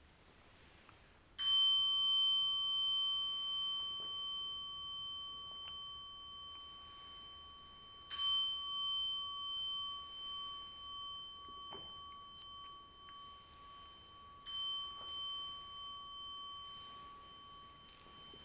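A small Buddhist bowl bell struck three times, about six and a half seconds apart, each stroke ringing on with a slow fade, the first the loudest. The strokes mark the close of the formal recitation before the talk.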